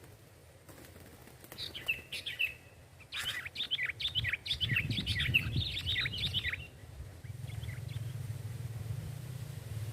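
Sooty-headed bulbul (kutilang) calls: a short run of quick chirps, then a longer, busier run of rapid chirping notes about three seconds in that stops near the middle. A low steady hum runs underneath in the second half.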